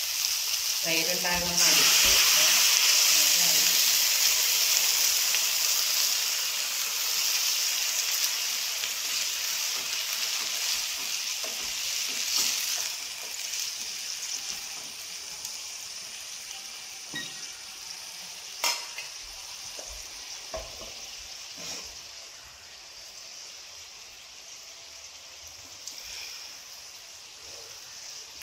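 Loud sizzle as buttermilk hits a hot pan of fried okra, fading slowly as the curry is stirred with a wooden spatula. A few sharp knocks of the spatula against the pan come in the second half.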